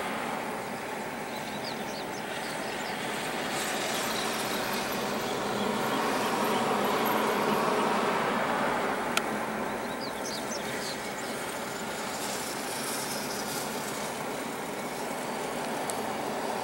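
Airliner's engines running with a steady rumble as it rolls along the runway after landing, swelling to a peak about halfway and easing off again. A single sharp click comes just past the middle.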